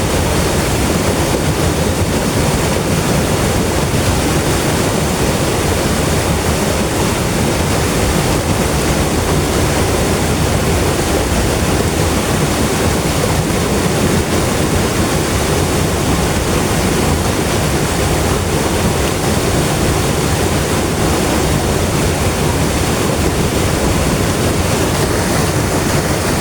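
River water flowing and rushing, a steady, even sound with most of its weight low.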